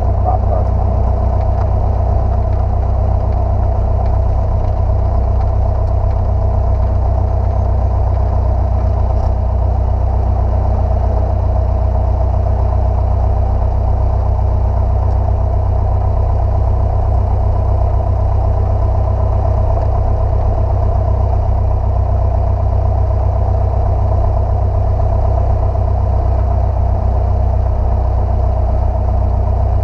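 Piston engine and propeller of a single-engine light airplane droning steadily, heard from inside the cockpit.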